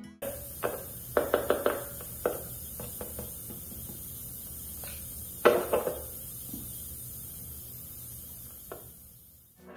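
Workbench handling sounds of guitar parts on a solid-body electric guitar: a quick run of about five light clicks, then a single louder knock about five and a half seconds in, and a few faint taps, over a steady low hum.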